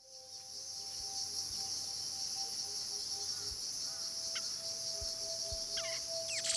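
A steady, high-pitched drone of insects, crickets or cicadas, fills the background. A few short chirps come near the end.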